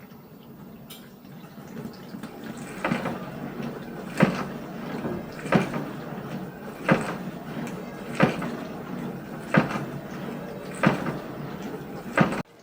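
LG 12-place-setting dishwasher running, with a steady wash-water spray and a loud knock repeating about every 1.3 seconds, eight times. The knocking is the open lid of the rinse-aid dispenser being struck over and over inside the tub; the machine itself is not faulty.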